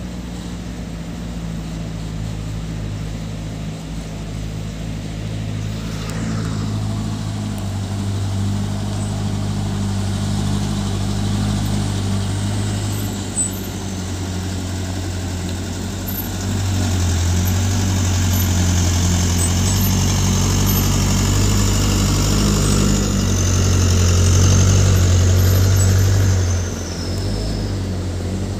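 Diesel engines of sand-hauling light dump trucks, among them a Hino Dutro, running as they drive past on a dirt road. The engine sound swells twice, loudest near the end before dropping, with a faint high whine that falls in pitch near the end.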